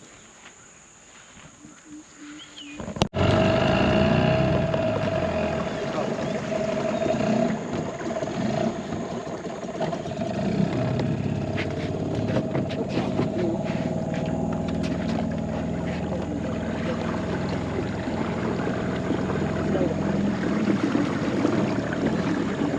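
A boat's outboard motor running steadily at a constant pace. It starts abruptly about three seconds in, after a quieter stretch.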